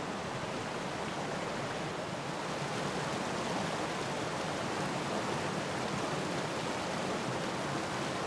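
Small forest stream spilling over a low cascade into a pool: a steady rush of running water.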